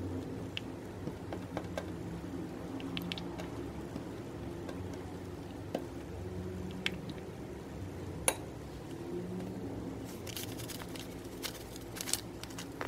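Silicone spatula stirring and folding a thick, wet slime mixture in a glass bowl, with a few sharp clicks of the spatula against the glass. Near the end comes a quick run of light clicks and taps as baking soda is tipped into the bowl from its container.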